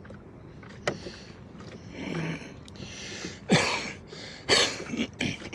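Oars of a small rowboat working the water: two splashy strokes about a second apart in the second half, with a sharp knock of an oar in its oarlock about a second in.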